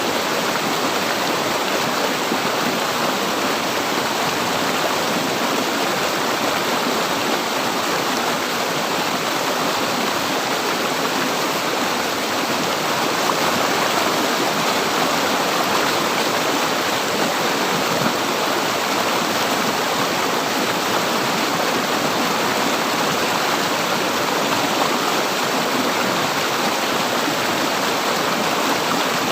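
River water flowing, a steady rushing and gurgling with no change in level.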